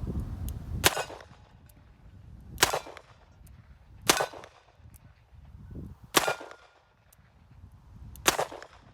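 Smith & Wesson 586 L-Comp .357 Magnum revolver fired five times, one shot every second and a half to two seconds. Wind buffets the microphone at first.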